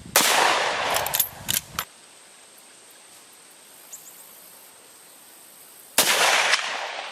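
Two rifle shots about six seconds apart, each a sudden crack trailing off in an echo lasting a second or more; a few sharp clicks follow the first shot.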